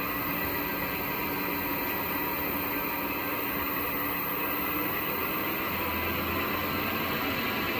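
Repaired Mitsubishi FR-A240E-15K inverter running on test: a steady hiss with several steady whining tones, the sound of the drive and its cooling fan in operation.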